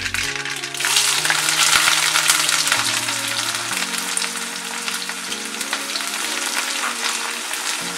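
Sliced onions tipped into hot oil with spluttering mustard seeds, setting off a sudden loud sizzle about a second in. The sizzle then settles to steady frying as the onions are stirred.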